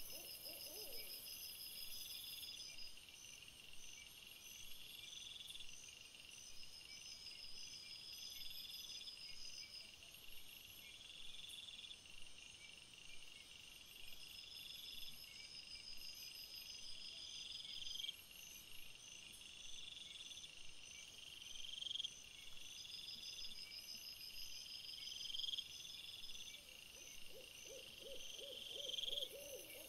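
Faint night chorus of crickets and other insects: a steady high chirring with a rising trill repeating about every two seconds. A short, rapidly pulsed low call comes right at the start and again near the end.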